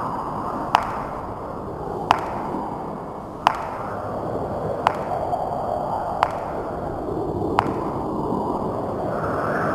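Ceiling fan running with a steady low hum and a sharp click about every second and a half, six in a row, as if ticking once per turn.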